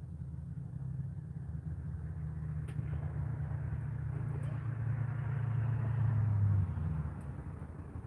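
A car passing on the road, its tyre and engine noise swelling for several seconds and dropping away about six and a half seconds in, over a steady low rumble.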